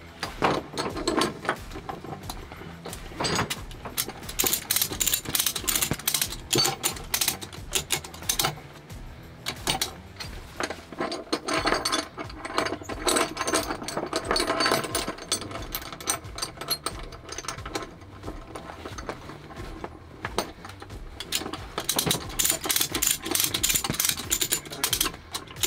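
Ratchet strap being worked: runs of rapid metallic clicking from the ratchet handle and pawl, stopping and starting several times.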